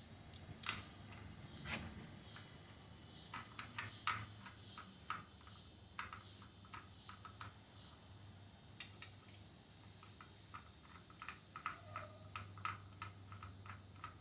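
Faint, irregular small clicks and taps of hand tools and metal parts being handled during an engine teardown, over a steady high-pitched drone that slowly fades.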